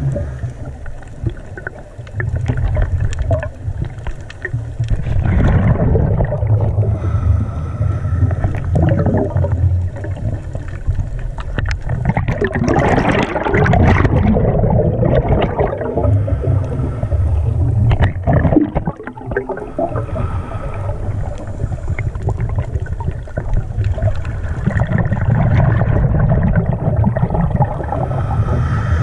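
Water rushing and gurgling around an underwater camera housing, heard as a steady low rumble, with a louder burst of bubbling and splashing about halfway through as a swim fin kicks.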